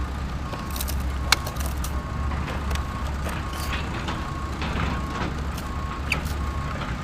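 Reversing beeper giving a steady run of short, evenly spaced beeps over a low rumble, with a few sharp clicks.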